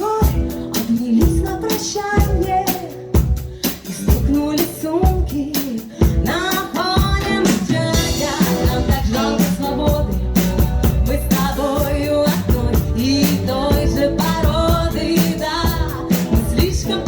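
A pop song with a singing voice over a steady drum beat.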